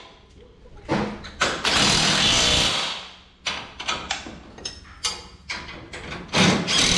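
A cordless drill runs in two bursts of about a second each, driving bolts through a race car's steel engine plate. A few short metallic knocks fall between the bursts.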